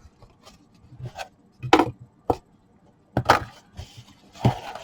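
Product packaging being handled and worked open by hand: a few scattered sharp clicks and knocks with some rubbing, the loudest knock about two seconds in.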